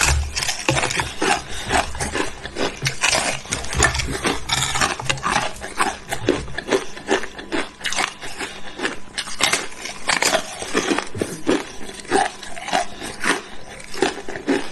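Hard ice being bitten and chewed, a dense, irregular run of sharp cracks and crunches.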